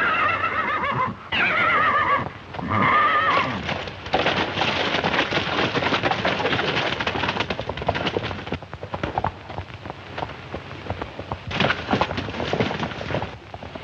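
A horse whinnies three times with a high, quavering pitch. Then several horses gallop off, a dense clatter of hoofbeats that thins out and grows again near the end.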